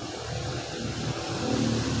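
A thin stream of liquid bleach trickling into a plastic dipper of water, over a steady low hum.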